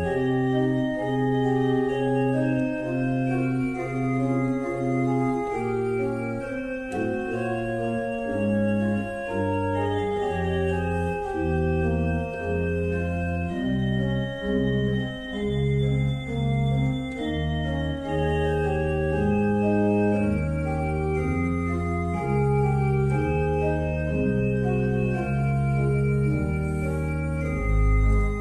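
Organ music: held chords changing about every second over a moving bass line, with a very deep bass note coming in near the end.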